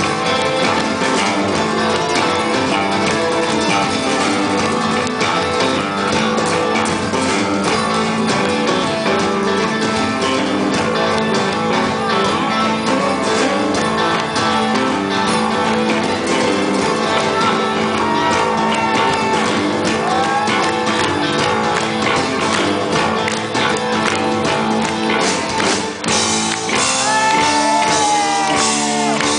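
Live rock band playing: electric guitars over a steady drum beat.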